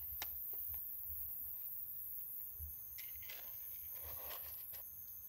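A few light, separate clicks and knocks over a quiet background, with a faint thin high tone coming and going.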